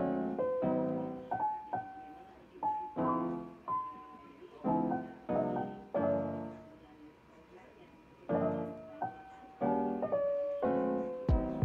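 Background piano music: a gentle melody over soft chords, the notes struck and left to fade in short phrases. A sharp thump near the end.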